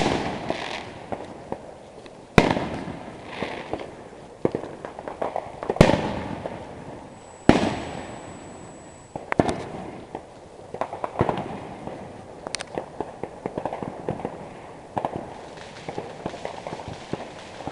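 Consumer fireworks going off: loud sharp booms about every two to three seconds, each trailing off in an echo, with dense crackling in between. A steady high whistle sounds for about two seconds just after the middle.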